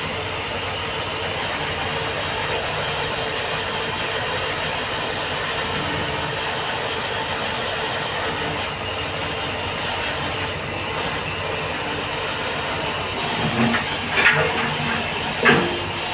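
Mixer grinder's electric motor running steadily with a constant hum, with a few short clatters near the end.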